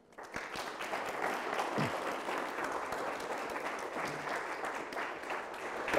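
Audience applauding: many hands clapping together, which starts within the first half second and keeps an even level.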